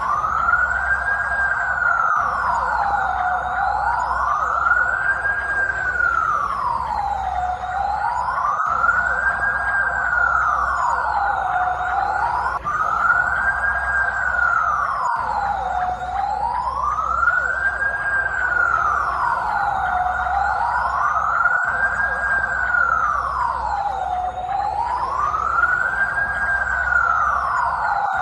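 Police siren sounding a slow wail, its pitch rising and falling smoothly and evenly about once every four seconds.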